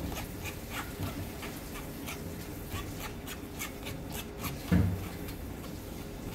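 A spoon scraping cooked pumpkin through a fine wire-mesh strainer in repeated short rasping strokes, with a single low thump about five seconds in.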